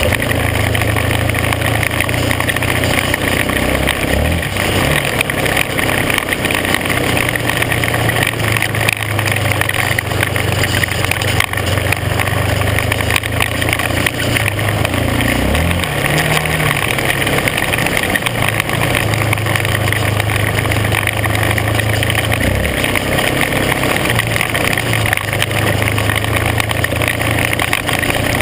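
Engine of an off-road vehicle running steadily under way on a gravel trail, its low note changing a few times, under a constant rushing noise.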